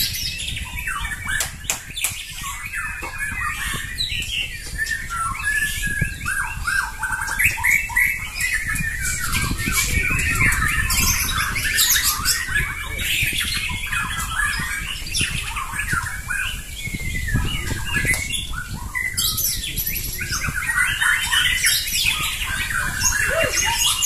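Several caged fighter white-rumped shamas (murai batu) singing against each other, with loud, overlapping bursts of varied song and harsh calls that go on without a break.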